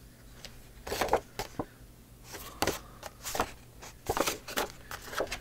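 Sheets of paper and card being handled and shifted on a cutting mat: irregular rustling and light taps, starting about a second in.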